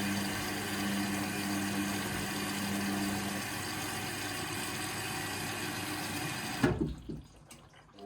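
Indesit washing machine drawing in water for a cotton wash: a steady rush of water with a low hum that stops about three and a half seconds in. Near the end a knock, and the water sound cuts off.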